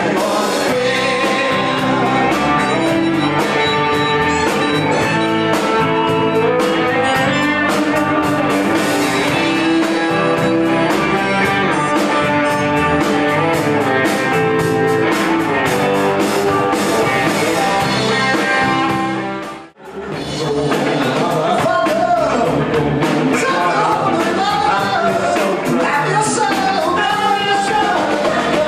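Live rock band playing: men singing over electric guitar and drums. The music drops out for an instant about two-thirds of the way through, then carries on.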